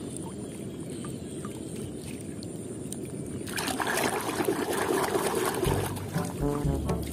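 Muddy water sloshing in a plastic tub, turning to loud splashing and churning about halfway through as a hand stirs it. Background music comes in near the end.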